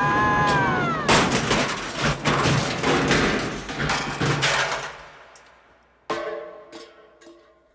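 Bobsled crash on an ice track: a harsh, continuous run of scraping and clattering impacts as the sled goes over and skids, fading out after about four seconds. About a second later comes a single sharp metallic clank with a short ringing, then a few faint knocks as it comes to rest.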